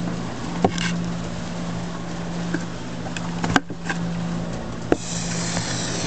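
Motor-driven rotary drum screener for worm castings running with a steady low hum while compost is pushed into it with a wooden paddle. A few sharp knocks, and a rustle of material near the end.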